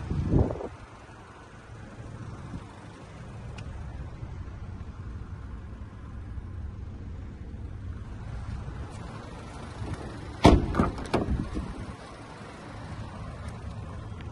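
Car doors of a 2015 Ford Fiesta: a dull thump just after the start, then a louder cluster of sharp clunks and knocks a little over ten seconds in as a door is opened and shut. A steady low rumble lies underneath.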